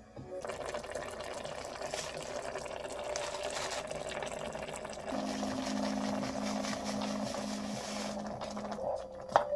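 Water boiling with vegetables in a cooking pot, a steady bubbling hiss.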